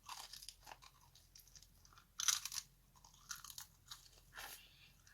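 Close-up chewing of crunchy fried food, a run of crisp crunches with the loudest about two seconds in.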